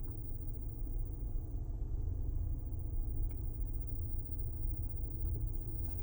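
Low, steady droning rumble in a Corsair's cabin: the drone noise the vehicle is being recorded for.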